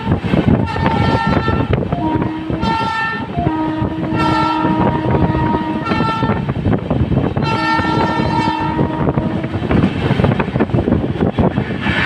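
WAP-7 electric locomotive's air horn sounding in about four blasts, one long one of about three seconds in the middle, over the steady rumble and clatter of the coach's wheels on the track. The horn stops about ten seconds in, leaving only the running noise.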